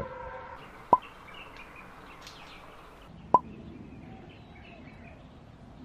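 Two short, sharp pops, about a second in and again about three and a half seconds in, over faint bird chirping.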